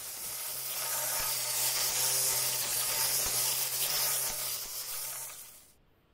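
Angle grinder motor running in a homemade lawn mower, its flat metal disc blade spinning through grass: a steady high hiss over a low motor hum. The sound dies away quickly near the end.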